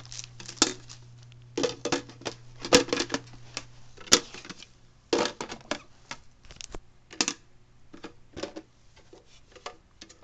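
Irregular clicks and knocks of hard plastic coffee-maker parts being handled, the water container and carafe taken out and fitted back into place, coming in short clusters.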